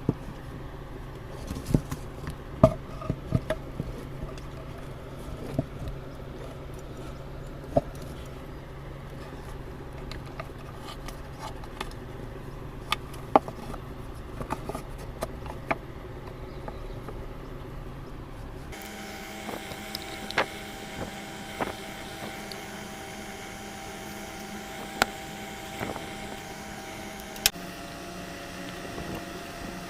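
Scattered sharp clicks and knocks over a steady hum. About two-thirds of the way through, the hum gives way abruptly to a different, higher steady drone.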